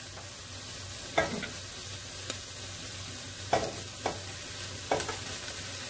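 Meat frying in a stainless-steel pan with a steady sizzle while sliced vegetables are tipped in from a bowl, with several sharp clinks against the pan.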